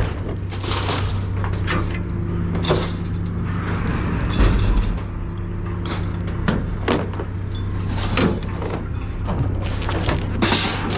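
Scrap metal being handled and dropped, with about a dozen scattered clanks and knocks and one heavier thump about halfway through, over the steady drone of an idling engine.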